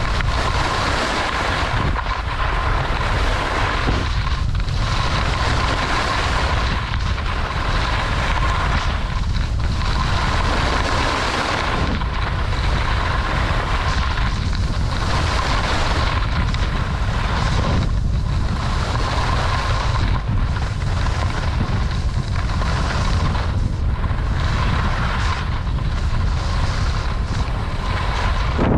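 Wind rushing over a helmet- or body-mounted GoPro microphone while skiing, with the hiss and scrape of ski edges on groomed snow. The rush rises and falls every two seconds or so as the skier turns.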